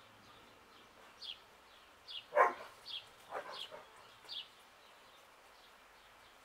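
A dog barks sharply about two seconds in, followed by a weaker bark a second later. A small bird repeats a short, high chirp roughly every three-quarters of a second.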